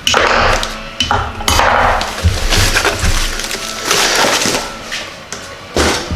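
Hand unpacking of belt grinder parts: packing material rustles in short bursts, and metal parts clink and knock against each other and the workbench.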